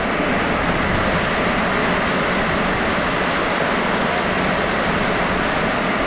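Heavy rain pouring down in a steady, even hiss.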